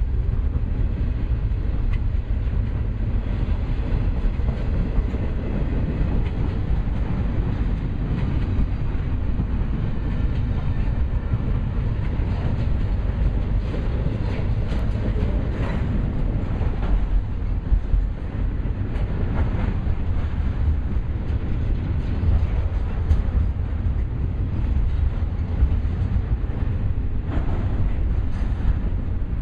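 Stack train of container cars rolling past: a steady low rumble of wheels on rail, with occasional clicks.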